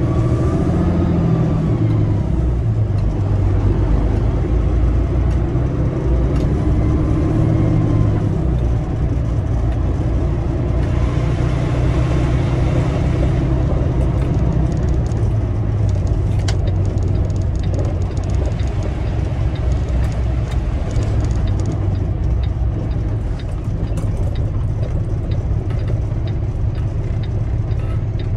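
Tractor-trailer's diesel engine and road noise heard from inside the cab as the truck drives, a steady low rumble with the engine pitch rising and falling over the first several seconds. Scattered light clicks and rattles come in the second half.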